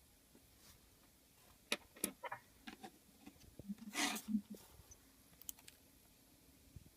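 A few faint, sharp clicks and taps, then a short rustle about four seconds in, and a couple more ticks near the end.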